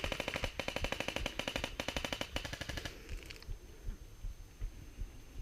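Airsoft gun firing on full auto: a fast, even rattle of shots, many per second, that stops about three seconds in.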